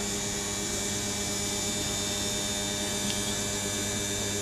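Inboard boat engine running steadily, an even mechanical hum with a constant pitch.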